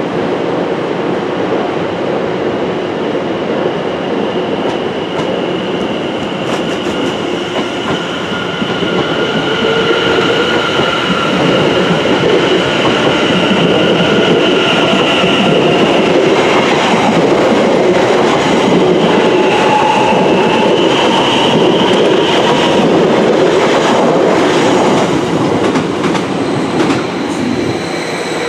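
Electric passenger trains running past on the line: a steady, loud rumble of wheels on rail, with a high whine held for several seconds through the middle and rhythmic clicks over rail joints in the second half.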